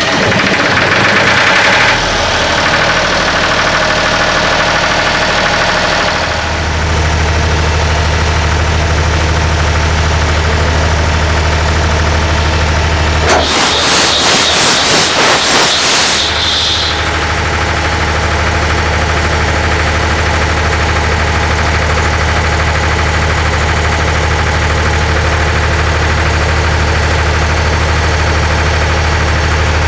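Perkins diesel auxiliary generator engine just after start-up, settling over the first few seconds into a steady low idle. Near the middle comes a loud, rapid clattering lasting about three seconds, and then the steady idle goes on.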